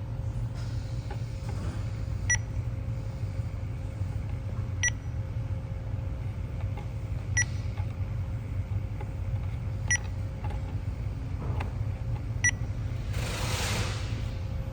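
Electronic refrigerant leak detector beeping at its slow idle rate, one short beep about every two and a half seconds, showing no leak at the fittings being checked. A steady low hum runs underneath, and a short hiss comes near the end.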